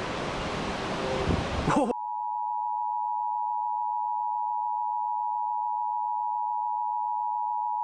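A rushing noise cuts off about two seconds in, and the Emergency Alert System attention signal begins: a steady two-tone alert tone held at one pitch, the signal that a warning message is about to be broadcast.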